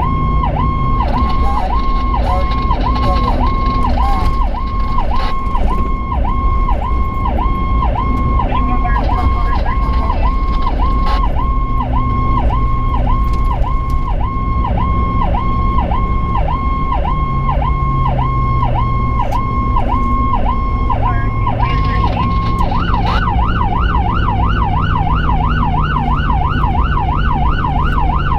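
Electronic emergency siren sounding a fast repeating yelp, switching about three-quarters of the way through to a quicker up-and-down warble, heard from inside the cabin of the responding vehicle. Underneath, the engine rises and falls in pitch over steady road noise.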